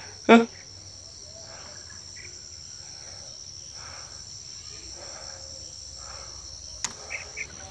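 Steady high-pitched chorus of insects in the surrounding vegetation. A brief loud vocal exclamation sounds just after the start, and a single sharp click comes near the end.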